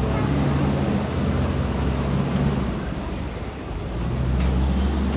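Engine of a Kilimanjaro Safaris ride truck running as it drives along the track, a steady low hum. The hum eases off a little midway and builds again near the end as a truck comes close.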